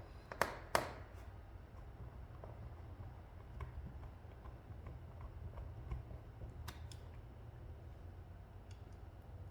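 Two sharp clicks about half a second in, then a few faint scattered clicks and taps over a low steady hum, from a laptop being handled and reassembled.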